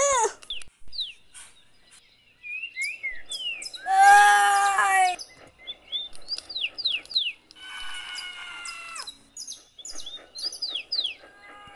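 Birdsong ambience of repeated short chirps, with three cries laid over it: a brief rising-and-falling cry at the start, a loud held yell about four seconds in, and a falling cry around eight seconds.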